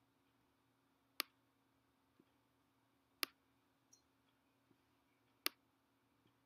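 Three sharp clicks about two seconds apart, with a few much fainter ticks between them, over near-silent room tone.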